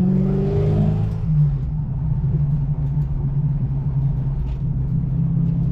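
1988 Ford Mustang GT's V8 running on the road, heard from inside the car: a steady low drone, rising slightly in pitch in the first second before settling.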